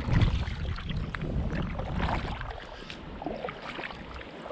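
Paddle strokes from an inflatable kayak, the blades dipping and splashing irregularly in the water. Wind buffets the microphone with a low rumble that is strongest in the first second and eases off from about halfway through.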